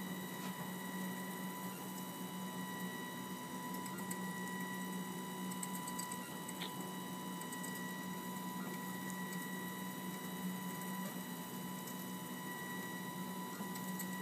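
Rapman 3D printer at work laying down plastic: a steady hum with a high whine and occasional faint ticks.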